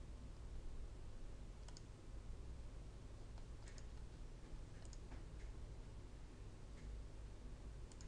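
Faint computer mouse clicks, a handful at irregular spacing, some in quick pairs, over a steady low hum.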